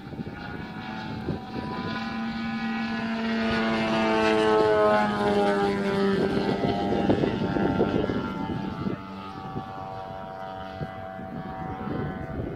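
Engine and propeller of a giant-scale Extra 330SC radio-controlled aerobatic model plane in flight. The note grows louder, drops in pitch about five seconds in, then fades somewhat in the second half.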